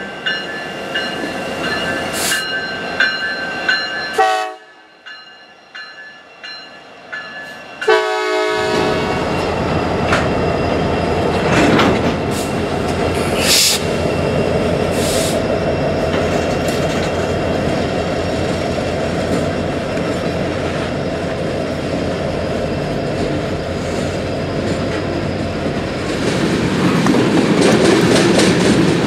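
Diesel freight trains passing with engines running and wheels clattering on the rails, briefly quieter about four seconds in. A short horn blast sounds about eight seconds in, and near the end a string of tank cars rolls past with louder wheel clatter.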